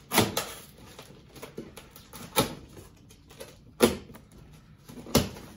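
Cardboard shipping box being opened with a knife: the packing tape slit and the flaps pulled open, with four sharp knocks among quieter scrapes and taps.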